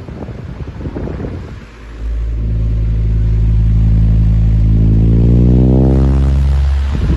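Venti Delta Ventura pedestal fan blowing straight into the microphone: gusty wind noise, then from about two seconds in a loud, steady low drone that edges up in pitch before cutting off just before the end.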